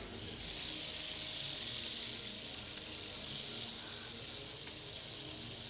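Crab claws sizzling steadily in hot oil in a pot, infusing the oil with crab flavour as the base of a crab ragu.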